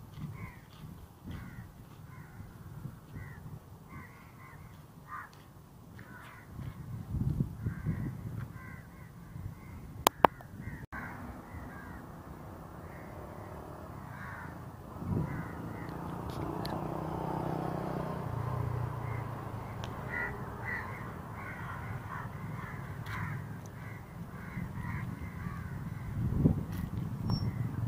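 Crows cawing again and again over a low outdoor rumble, with one sharp click about ten seconds in.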